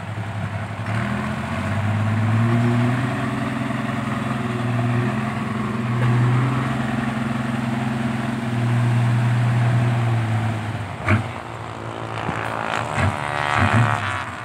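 Isuzu Deca 195 dump truck's diesel engine running at raised revs through a new triple-tipped exhaust while the hydraulic hoist lifts the tipper bed. There is a sharp knock about eleven seconds in, and the engine note goes uneven after it.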